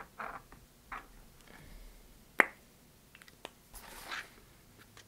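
Pen scratching short strokes on a cardboard box in the first second, then a single sharp click about two and a half seconds in, and a brief rustle as the paper box is picked up and handled.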